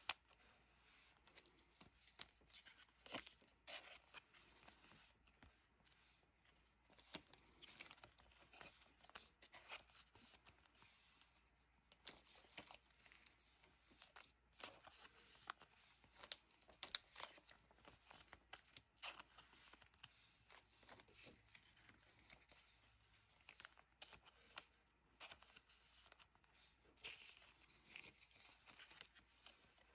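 Faint crinkling and rustling of thin plastic card sleeves as trading cards are slid into them and handled, in many short soft bursts, with one sharper tick right at the start.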